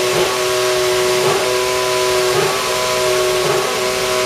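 Mercedes AMG W07 Hybrid Formula 1 car's 1.6-litre turbocharged V6 running at a steady idle: a constant whine of several tones, with a brief flutter about once a second.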